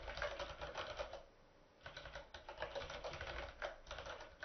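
Typing on a computer keyboard: a quick run of key clicks, with a short pause about a second in before the typing resumes.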